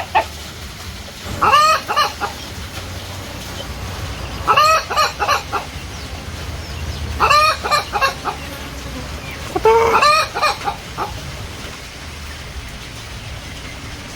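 Chickens calling: four loud, pitched calls about every two and a half to three seconds, each about a second long and broken into several notes, over a steady low background rumble.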